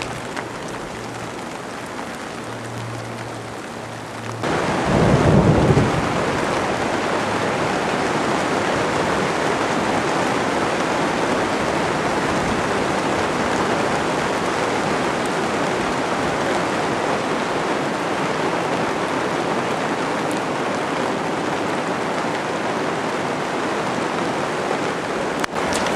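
Heavy rain pouring down in a thunderstorm, steady noise that becomes much louder about four seconds in, with a short low rumble of thunder just after.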